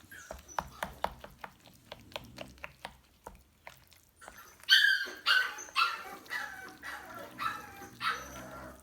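A run of light, sharp clicks, then from about halfway in a dog barking and yipping in high-pitched calls, about two a second.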